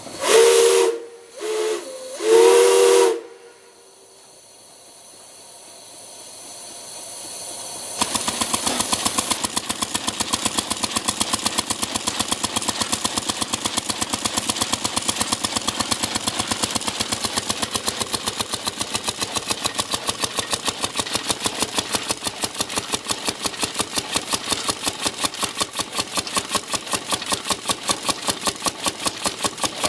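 Steam whistle sounding three loud blasts: long, short, long. From about eight seconds in, a small steam engine driving a drag saw through a log runs with a fast, even train of exhaust beats.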